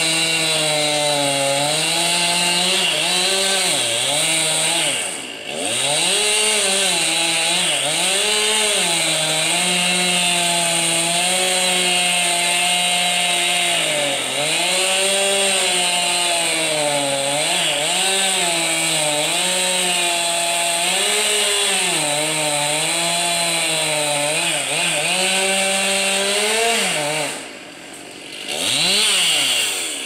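Chainsaw cutting through a pine trunk, the engine pitch sagging and recovering again and again as the chain bites into the wood. It eases off briefly about five seconds in, drops away near the end, then revs back up.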